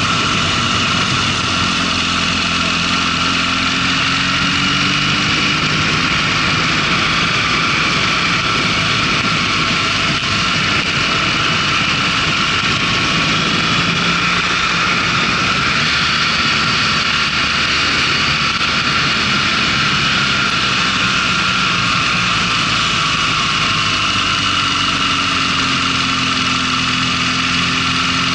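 Motorcycle engine running under way with a steady rush of wind and road noise. The engine note dips and rises a few times as the bike slows through the bends.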